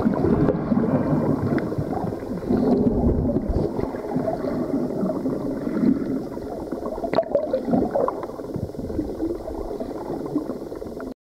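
Muffled underwater water noise picked up by a submerged camera: irregular gurgling and bubbling as a swimmer in a mermaid monofin moves past. It cuts off abruptly near the end.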